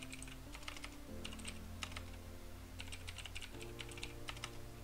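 Typing on a computer keyboard: irregular runs of quick keystrokes. Quiet background music of held chords plays underneath, changing chord twice.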